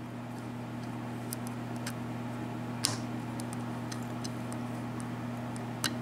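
Faint metallic clicks and ticks of a hook pick working the pin stacks of a 4-pin Commando padlock under tension, with a sharper click about three seconds in and another near the end as the plug gives into a false set. A steady low hum runs underneath.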